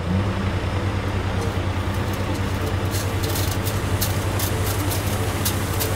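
Diesel engine of a loaded dump truck running steadily while the bed is raised and sand slides out, with light scattered clicks in the second half.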